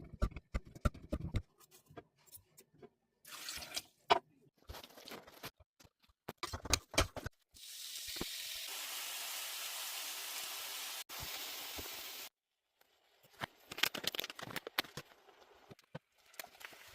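Kitchen food-preparation sounds: scattered clicks and knocks of utensils and food being handled, with a steady hiss of about four seconds midway.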